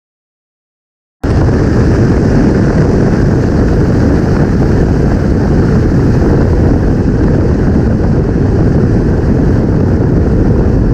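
Complete silence for about the first second, then a loud, steady rush of wind buffeting a camera mounted low on the flank of a BMW M4, with tyre and road roar, at high speed after a half-mile run.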